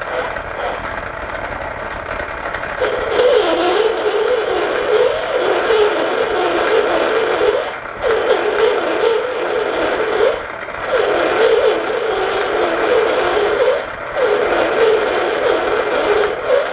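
Metal lathe turning down a pipe plug. The cut starts about three seconds in: a loud, wavering cutting sound with brief breaks about every three seconds. The feed is running very slowly, so the tool is chewing up the work.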